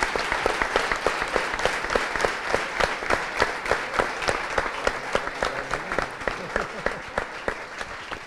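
Audience applauding: a dense patter of many hands clapping, with a few louder claps standing out at a fairly even beat. The applause tapers off near the end.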